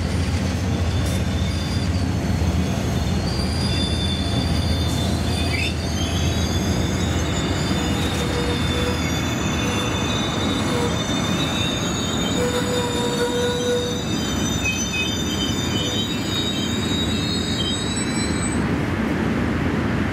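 Amtrak Silver Meteor passenger cars rolling past with a steady rumble of steel wheels on rail, and the wheels squealing in several high, sustained tones from about four seconds in until near the end.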